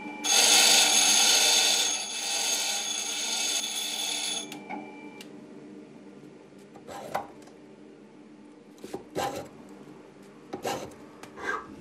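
A hand-forged steel stonemason's tool being dressed: a harsh, loud rasping of metal for about four seconds, then it drops away and a few separate short scraping strokes follow.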